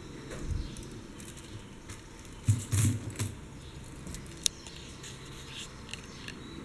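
Handling noise from the acrylic-bead handbag being moved about: light clicks and rustles with a few low bumps, a cluster of bumps about two and a half to three seconds in and one sharp click about four and a half seconds in.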